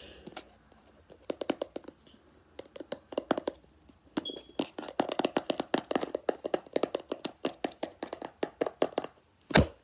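Fingers tapping quickly on a jar of body butter with a metal lid, in runs of about seven taps a second with short pauses, then one loud thump near the end.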